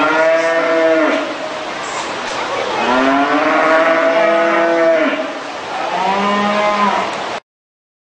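Cattle mooing: three calls, the middle one the longest, each rising and falling in pitch.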